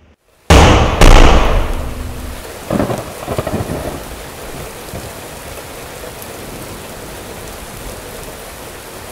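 A thunderstorm: a sudden loud thunderclap with a second crack right after it, rumbling away, a shorter rumble about three seconds in, then steady rain.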